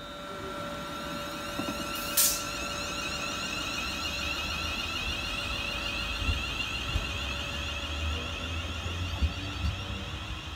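Class 350 Desiro electric multiple unit pulling away, its traction equipment giving a steady high-pitched whine over a low rumble of wheels on rails that builds about halfway through. A single sharp click about two seconds in is the loudest moment.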